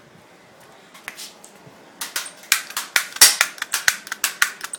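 Toy cap guns firing a rapid string of sharp cracks, starting about two seconds in, after a few faint clicks.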